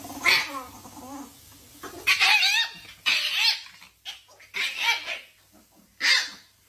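An animal calling in a series of about five short, pitched cries spaced a second or so apart.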